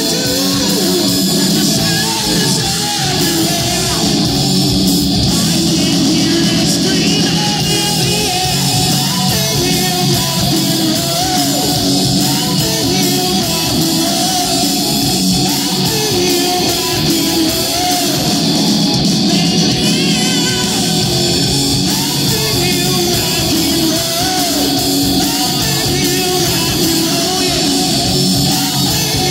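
Live hard rock band playing loud through the PA: distorted electric guitars over a steady beat, with a male singer belting into the microphone.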